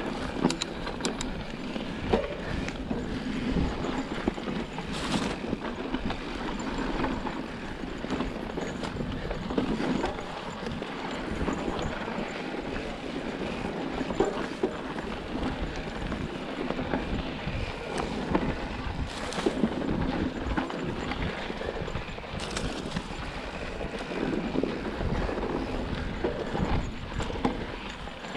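Mountain bike rolling down rough dirt singletrack: continuous tyre noise on dirt and gravel, with frequent clattering knocks as the bike jolts over rocks and bumps, and a few brief hisses.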